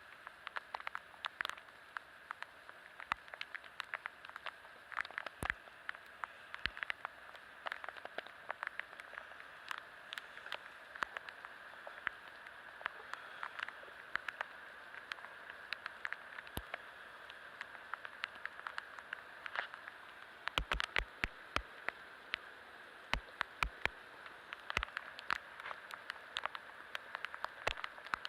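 Typhoon rain falling steadily, with irregular sharp ticks of drops striking close by and a quick flurry of them about twenty seconds in.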